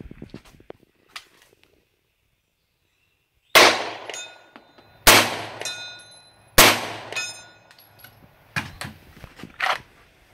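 Three 9mm carbine shots about a second and a half apart, each followed by the thin ringing of a steel gong struck at 100 yards. Near the end come a few lighter knocks.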